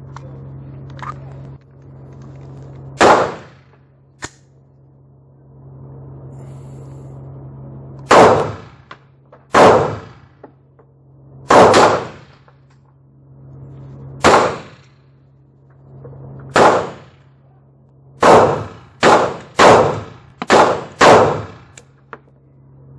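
Pistol shots fired one at a time, each with a ringing tail, several seconds apart at first, then a quicker string of five near the end.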